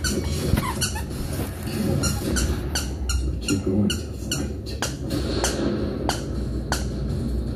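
A dog's squeaky toy bear squeaking over and over as a bulldog pup chews and squeezes it. The squeaks are short and sharp, about two or three a second and irregular, over low rustling from the chewing.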